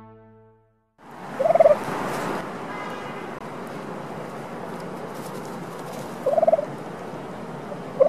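Male turkey (tom) gobbling: three short gobbles, about a second and a half in, past six seconds, and at the very end, over a steady background hiss.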